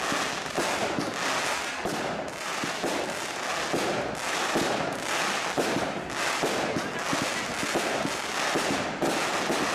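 Fireworks display going off in a dense, continuous run of crackles and bangs, with no gaps.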